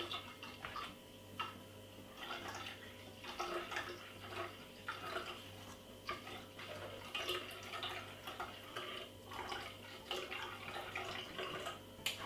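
Freshly blended beetroot and ginger juice dripping and trickling through a strainer in small irregular splashes, over a low steady hum.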